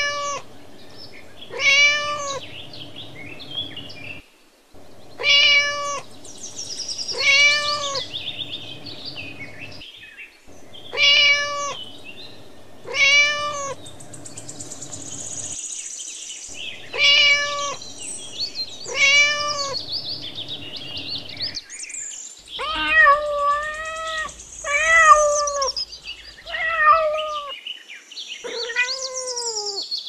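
Domestic cat meowing: the same pair of meows, about two seconds apart, repeats about every five and a half seconds. Then, in the last several seconds, comes a quicker run of varied meows, some falling in pitch.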